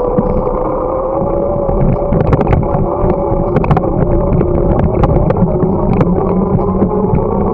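Ride noise from a camera on a moving bicycle: a low rumble under a steady whine that slowly rises in pitch, with sharp rattling clicks from about two seconds in.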